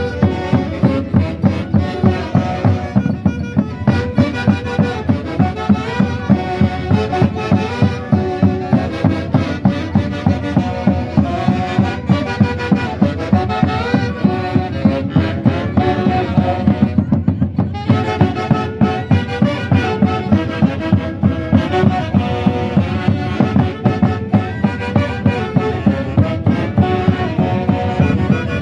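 Live Andean festival band music from the central Peruvian highlands: a dense melody over a steady, quick beat. The upper part of the music thins out briefly about seventeen seconds in.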